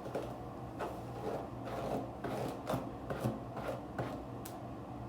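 A comb raking repeatedly through a synthetic lace front wig's hair, a quick run of short scraping strokes, about two to three a second.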